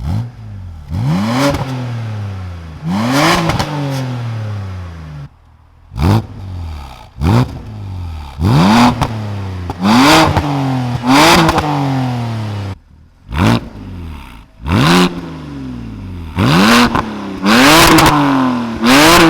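BMW Z4 Coupe's 3.0-litre naturally aspirated N52 straight-six, revved in about a dozen quick free-rev blips. Each rises sharply and falls back toward idle. It runs through a straight-piped back box with the resonator deleted, giving a loud, raspy exhaust with crackle on several blips.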